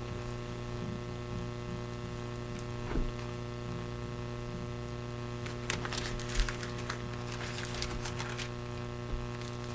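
Steady electrical mains hum, with a soft knock about three seconds in and a stretch of crisp paper rustling in the second half as the pages of a Bible are turned to look up a passage.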